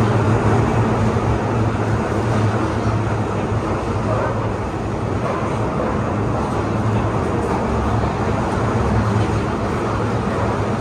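Toei 6500-series subway train running, heard inside the car: a steady, loud low rumble of wheels on rail.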